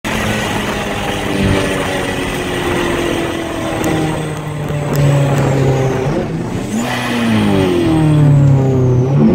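BMW E30's M42 four-cylinder engine heard from inside the cabin, pulling under acceleration on the road. Its note climbs steadily, then falls and climbs again about two-thirds of the way in.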